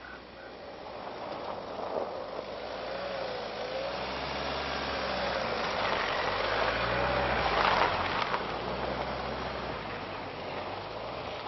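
Land Rover Freelander 2 driving past on snow. Its engine note rises and falls with the revs over tyre noise on the snow, loudest about eight seconds in as the car passes, then fading as it drives away.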